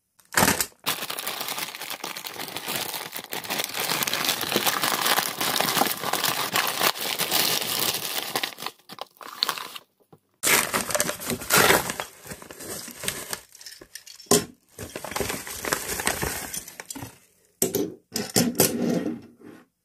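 Plastic courier mailer and paper padded envelope being cut, torn open and crinkled, in long stretches of crackling and then shorter bursts after a brief pause. Near the end, a few light clicks as a small die-cast metal toy engine and tender are handled and set down on a wooden table.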